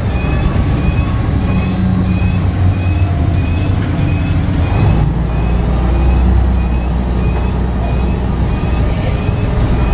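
Volvo B58 bus's 9.6-litre six-cylinder THD100 diesel engine running under way, heard from inside the passenger cabin, its note shifting about halfway through. A light regular ticking, about one and a half a second, runs alongside.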